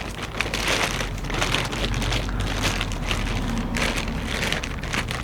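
Continuous rustling and crinkling of packing material as hands dig through a clutch kit's box.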